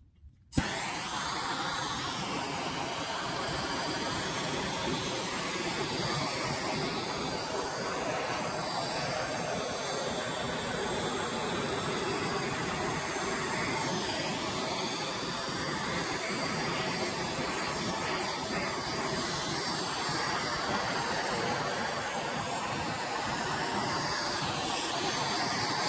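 Handheld gas torch hissing steadily as its flame chars the surface of the wood. The hiss starts suddenly about half a second in.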